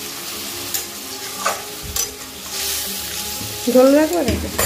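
Puti fish curry sizzling in a metal wok on a gas stove, with a metal spatula stirring and clicking against the pan a few times. A brief voice sounds near the end.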